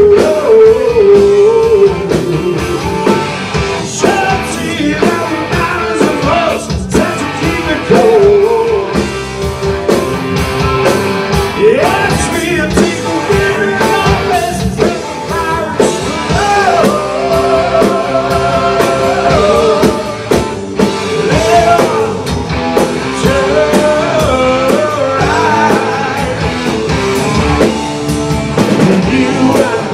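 Live rock band playing loudly: electric guitars, bass and drum kit, with a male voice singing over them.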